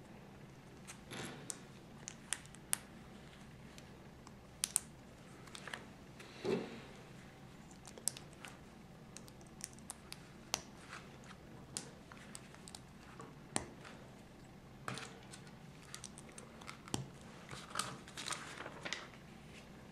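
Small plastic LEGO bricks handled in the fingers while stickers are pressed on: scattered light clicks and taps, a few a second at times, with short soft rustles now and then.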